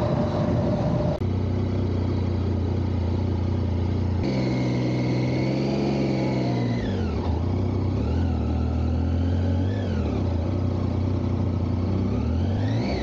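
Triumph Tiger 800's three-cylinder engine running under way, heard from the bike. After a steady stretch its note falls and rises in pitch several times as the motorcycle slows and pulls away again through low-speed turns.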